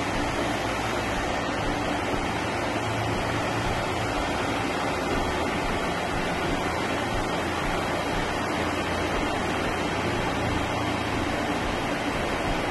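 Steady, unchanging rushing noise with a faint low hum underneath.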